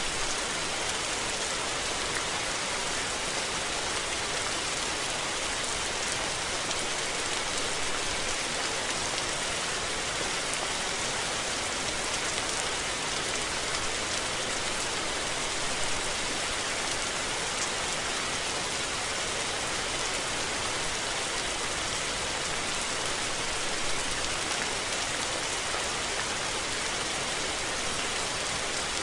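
Steady rain falling: an even, dense hiss of drops with fine scattered ticks, unchanging throughout.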